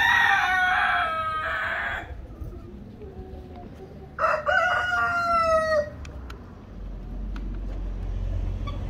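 A rooster crowing twice: two long drawn-out calls, each slowly falling in pitch, about four seconds apart. A low steady rumble comes in near the end.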